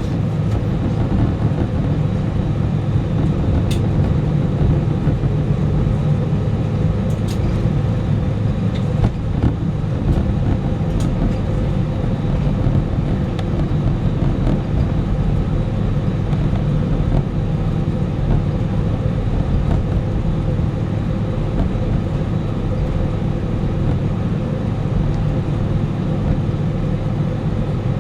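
Airbus A319 cabin noise, with the engines running steadily at low power and a constant hum and rumble. A few faint ticks and rattles come through.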